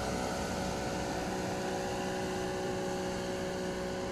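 Steady mechanical hum with several held tones over an even hiss.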